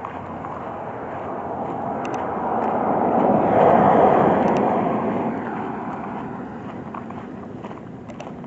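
A vehicle passing by on a wet road: its tyre hiss swells to a peak about four seconds in, then fades away.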